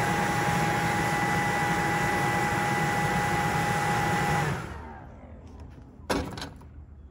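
Handheld blower running steadily with a whine, blowing air into the grill's glowing charcoal to stoke it hotter for searing. It is switched off about four and a half seconds in and winds down, followed by a single sharp knock.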